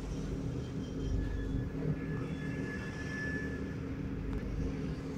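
Steady low background hum, with a few faint thin high tones coming and going above it.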